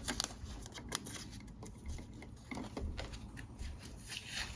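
Faint, scattered small clicks and rustles of hands handling a light switch's wires and marking one with a piece of tape.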